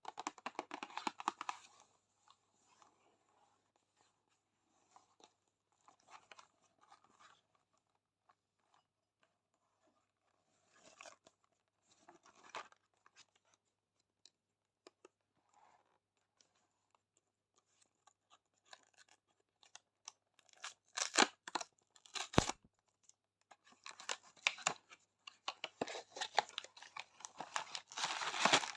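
Sweet wrappers and plastic packaging being handled, torn open and crinkled in irregular bursts with quiet pauses between. Sharp clicks and a single knock come past the middle, then steady crinkling near the end.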